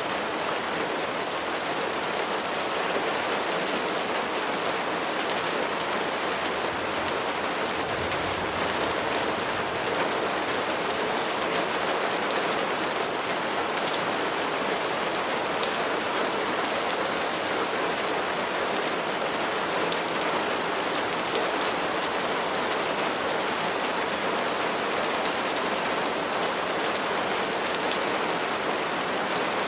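Steady rain falling on a surface: an even, continuous hiss with scattered sharper drop ticks.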